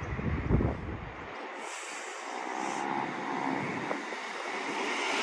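Adelaide Metro A-City 4000 class electric train approaching: a rushing rail sound that grows gradually louder. Wind gusts on the microphone in the first second or so.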